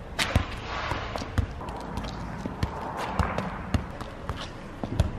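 A football being juggled and kicked: a series of irregular dull thuds as the ball strikes the foot and bounces on stone paving, about one every half second to second, over a steady hiss.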